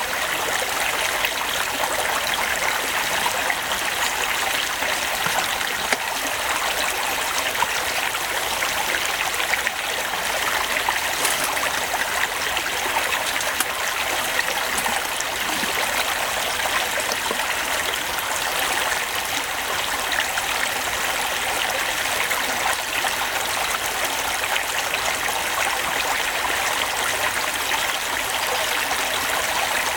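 Steady rushing noise, like a running stream, unchanging throughout.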